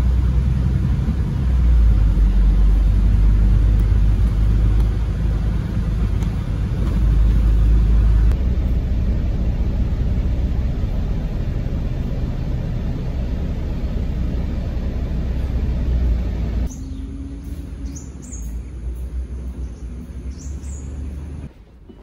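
Steady low rumble of a bus cabin while riding: engine and road noise heard from inside. About two-thirds of the way in it drops to a quieter rumble with a few short high squeaks.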